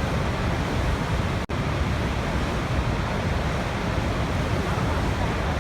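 Waterfall's steady rush of falling water, a dense even roar heaviest in the low end, with a momentary dropout about one and a half seconds in.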